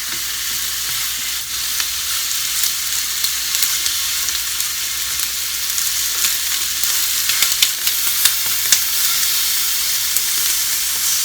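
Chicken wing middles frying in vegetable oil in a pan on medium heat: a steady sizzle, with sharp spits and crackles that come more often in the second half.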